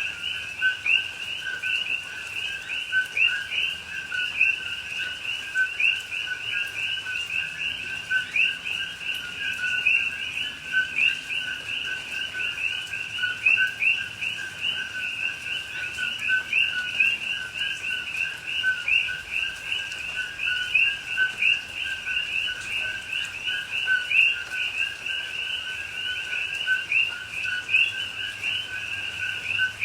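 Dense chorus of many coqui frogs calling over one another, each call a short two-note "co-qui" with the second note higher and rising, repeated without pause.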